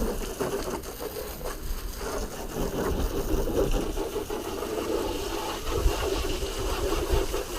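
An engine running steadily, a low rumble with a constant hum over it.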